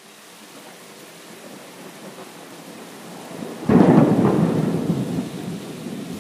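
Steady rain hiss that grows gradually louder, then a sudden clap of thunder about three and a half seconds in, rumbling away slowly.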